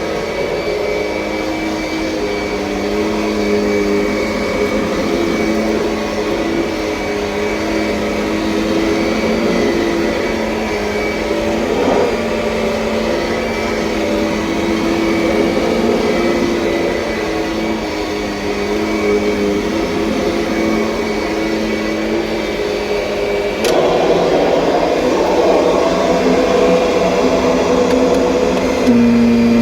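Kirby Sentria upright vacuum cleaner running steadily with a droning motor hum. About three quarters of the way through it gets louder and rougher, with a click at the change.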